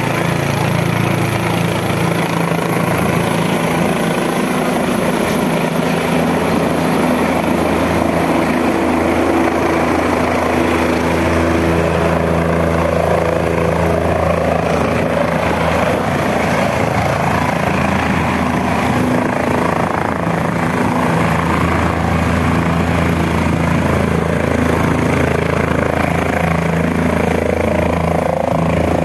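Light skid helicopter passing low overhead and then descending to land, its rotor and engine running loud and steady throughout.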